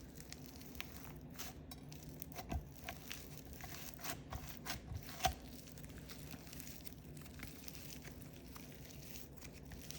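Faint, scattered small clicks and crackles of store-bought slime being folded and squeezed by hand, with sprinkles mixed in. A low steady hum lies underneath.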